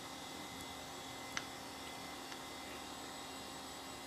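Steady hum and hiss of the Power Macintosh 6500 desktop computer running as its CRT monitor warms up, with one faint click about a second and a half in.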